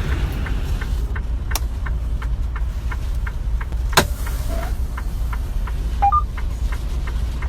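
Steady low rumble of a vehicle running, with a light, regular ticking about three times a second and two sharp clicks.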